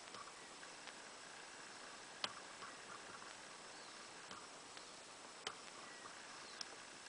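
Faint outdoor quiet with a steady hiss, broken by a few sharp ticks, the loudest about two seconds in, and a few short high chirps.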